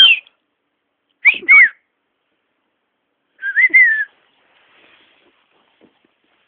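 A person whistling short notes that rise and fall in pitch: one at the start, two close together a little over a second in, and two more about three and a half seconds in.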